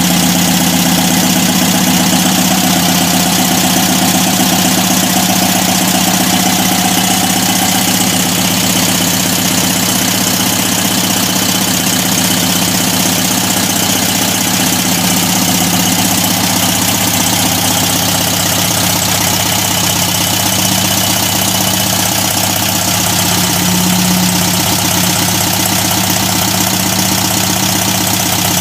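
1974 Volkswagen Super Beetle's air-cooled flat-four engine idling steadily.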